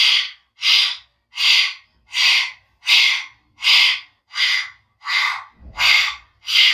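Rapid, forceful breaths huffed through the wide-open mouth with the tongue stuck out, the lion's breath of Simhasana. There is about one hissing breath every three-quarters of a second, each as strong as the last.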